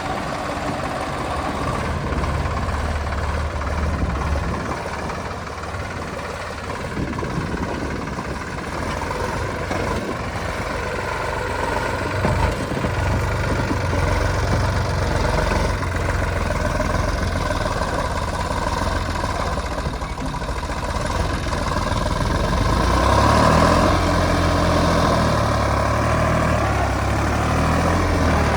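Heavy diesel engine running steadily, getting louder and varying in pitch near the end as it works harder.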